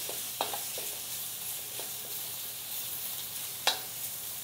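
Pork medallions searing in smoking-hot olive oil in a wok over a high-output open gas burner, sizzling with a steady hiss. A wooden spoon stirring them knocks sharply against the wok a few times, loudest shortly before the end.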